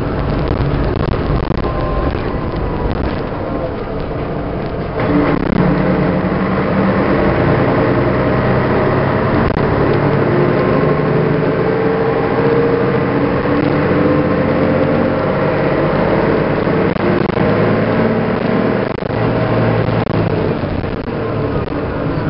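MAN SL 202 city bus's diesel engine under load as the bus pulls away. The engine comes in harder about five seconds in and its note climbs steadily as the bus gathers speed, then eases off near the end.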